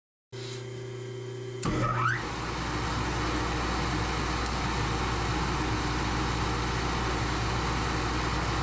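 A milling machine's motor is switched on with a click about a second and a half in, spins up with a short rising whine, then runs steadily with a low hum and hiss. A quieter steady hum comes before the switch-on.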